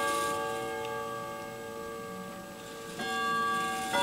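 Grandfather clock chimes ringing: several bell tones struck together just before, dying away slowly, then fresh chime notes struck about three seconds in and again near the end.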